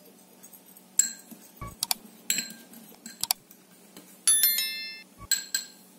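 Metal fork clinking against glass bowls while stirring food colouring into batter: a series of sharp clinks, the loudest a little after four seconds in, which rings on for over half a second.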